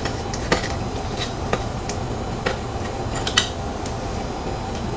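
A kitchen knife tapping and scraping against a cutting board and bone while carving meat off a roasted pig's head: a handful of scattered clicks and knocks, the sharpest about three and a half seconds in, over a low steady hum.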